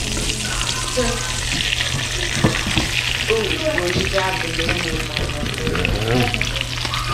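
Fish pieces frying in hot grease, a steady sizzle, with a few sharp clicks.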